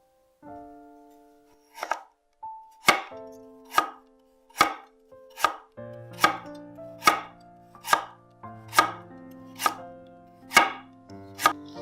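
Kitchen knife chopping vegetables, slow, even strokes about one a second, a dozen in all, over soft background music.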